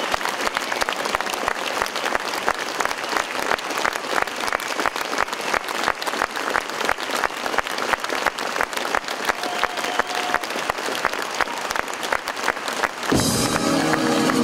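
Concert hall audience applauding steadily. Near the end the ensemble's band suddenly strikes up music, louder than the applause.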